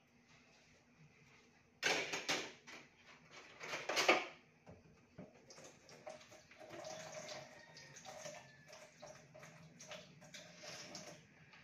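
Kitchen tap water running in two short rushes as things are rinsed under it, then dishes and utensils clinking and knocking lightly in the sink as they are washed.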